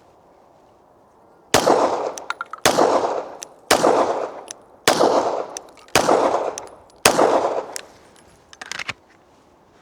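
Six 9mm pistol shots from a Glock 17, fired at an even pace of about one a second, each trailing off in echo. A fainter crack follows near the end.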